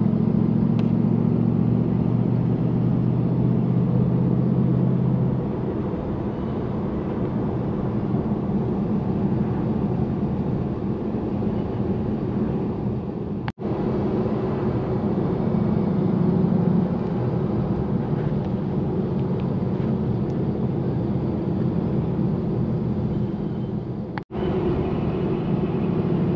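Car cabin noise while driving at road speed: a steady low engine drone over tyre and road hiss. The sound drops out for an instant twice, about halfway through and near the end.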